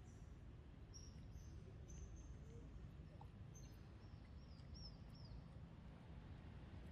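Faint outdoor ambience: small birds giving short, high chirps, a few with quick falling ends, over a low steady rumble.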